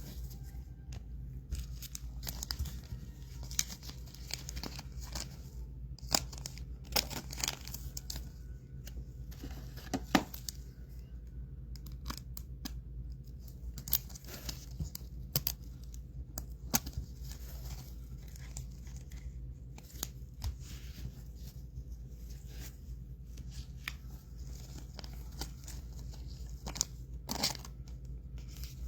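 Trading-card pack wrappers being torn open and crinkled, with cards handled, in scattered short rips and rustles over a low steady hum.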